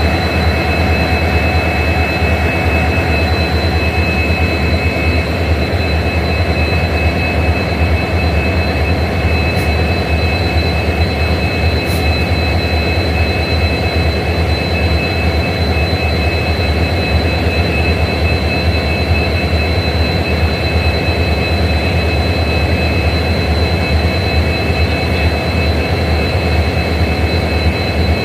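Twin EMD WDP4D diesel locomotives idling together, their 16-cylinder two-stroke EMD 710 engines giving a steady low hum under a constant high-pitched whine.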